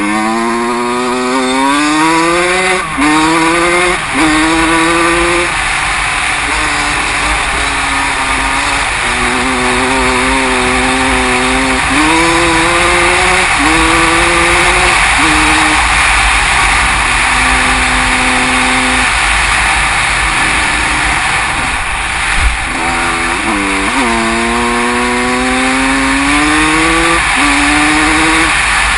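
Motocross bike engine, recorded on the bike itself, pulling hard with its pitch climbing and dropping at each gear change, over a heavy rush of wind on the microphone. About two-thirds through it eases off, there is a single thump, and it accelerates up through the gears again.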